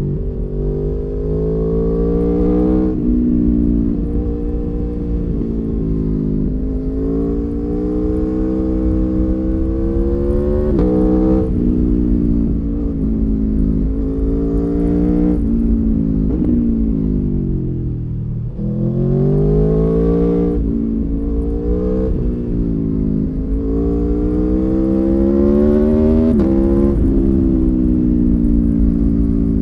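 2019 Aprilia Tuono V4 1100 Factory's stock 1077 cc 65-degree V4 engine heard onboard, pulling hard with the revs climbing and then dropping sharply every few seconds as it shifts up. About halfway through the revs fall steadily as the bike slows, then it pulls up through the gears again. A steady rush of wind runs underneath.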